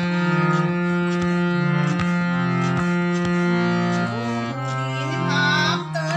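Harmonium playing a melodic line of held reed notes over a sustained lower drone, the notes changing about once a second. A woman's singing voice comes in about four seconds in, wavering on a held note near the end.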